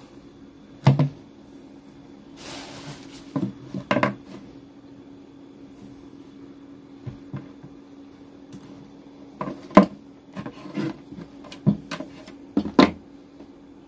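A clamp meter, its test leads and a large cylindrical LiFePO4 cell being handled and set down on a plywood tabletop: scattered knocks and clatters with a brief rustle about two and a half seconds in, over a faint steady low hum.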